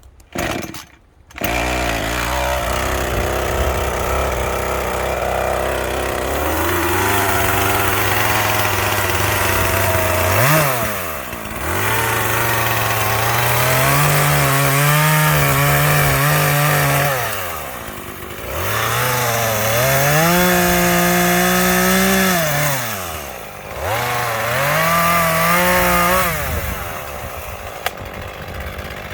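Small two-stroke chainsaw engine idling, then throttled up to full revs four times for cuts, its pitch rising and holding high during each cut and dropping back between them, settling back to idle near the end.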